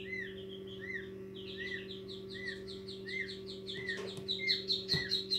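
Newly hatched peachicks peeping: short arched peeps a little more than once a second, joined about a second and a half in by a faster, higher run of peeps that grows louder toward the end. Beneath them runs the incubator's steady low hum, and there are a couple of light knocks near the end.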